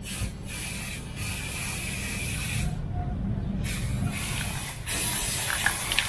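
Aerosol can of flat clear coat spraying in several long hissing bursts with short pauses between them, the longest pause about three seconds in.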